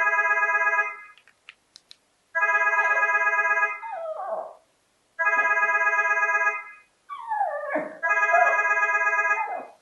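A cordless home phone ringing with an electronic ringtone, four rings about three seconds apart, while a small terrier barks and howls at it. The dog joins in from the second ring on, its voice sliding up and down in pitch.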